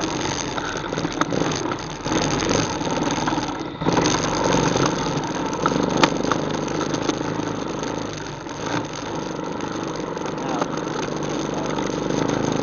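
ATV engine running steadily, with a short dip about four seconds in and a single sharp click about six seconds in.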